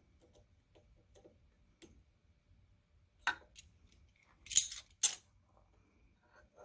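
Metal tooling being handled: a pilot drill bit being taken out of a hole saw arbor, with faint small clicks and then three sharp metallic clinks in the second half.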